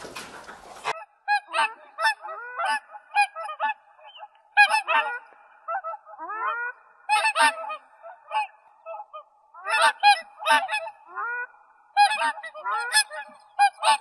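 Geese honking over and over, in bursts of several short calls with brief pauses between, after a second of rushing noise that cuts off.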